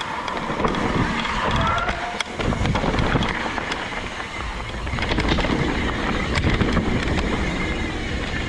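Wind rushing over the microphone and an Evil Insurgent mountain bike rattling down a rough trail, with a steady run of sharp clicks and knocks from the bike and tyres.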